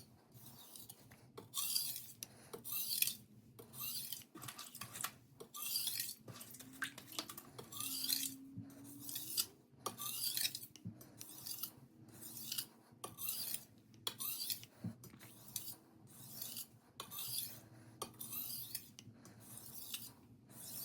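Steel knife edge drawn across an 800 grit diamond sharpening stone in light, even strokes, a little over one a second, each a short gritty scrape. These are light stropping strokes on the stone to remove the burr.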